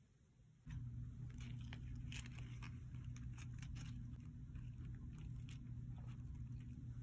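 Crisp iceberg lettuce leaves rustling and crackling as they are handled and pressed onto a bun, in scattered short crinkles over a steady low hum.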